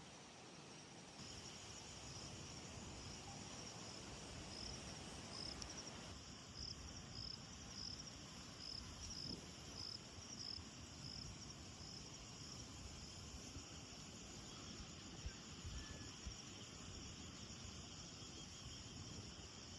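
Faint insects chirping in a steady rhythm, roughly one or two high chirps a second, over a soft background hiss. The chirps fade out in the second half.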